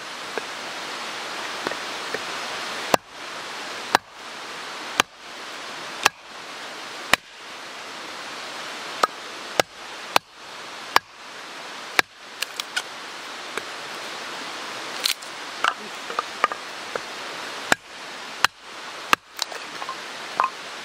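Firewood being split into kindling: repeated sharp wooden knocks, mostly about one a second with a few quicker ones in the second half. The steady rush of a mountain stream runs underneath.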